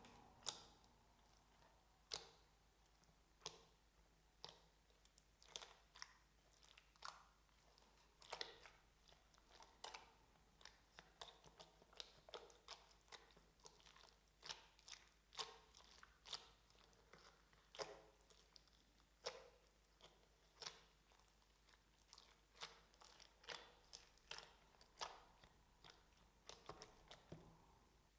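Slime being worked by hand, giving a run of small, sharp crackles and pops at irregular intervals, about one to three a second.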